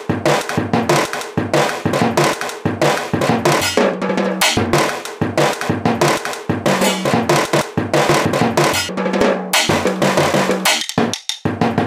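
Drums beaten in a fast, continuous run of strikes, snare-like hits over a deeper drum, with a brief break near the end.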